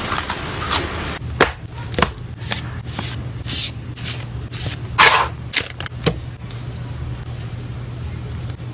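Plastic sleeves and packing materials handled while photocards are packed: a string of short crinkles and taps, about two a second, the loudest just after five seconds, then thinning out. A low steady hum runs underneath.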